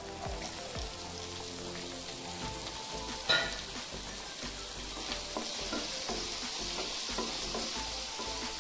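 Sliced ivy gourd sizzling in hot oil in a pan, with one sharp clink about three seconds in, then stirred with a wooden spatula, the scraping ticks sitting over a sizzle that grows stronger toward the end.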